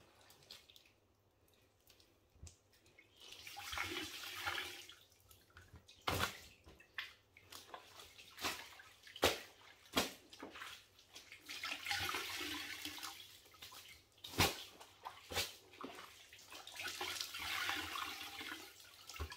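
Water trickling and splashing as a soaked cloth is wrung out into a plastic bucket, in three spells of a second or two each. Sharp knocks from handling the bucket and cloth come in between.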